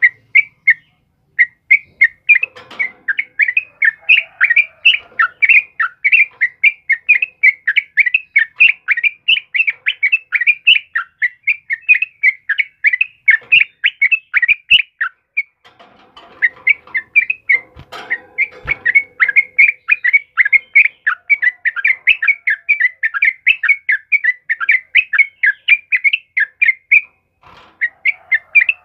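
A caged yellow-vented bulbul (trucukan) calling persistently in a rapid, unbroken string of short chirps, several a second. It pauses briefly about halfway through and again near the end.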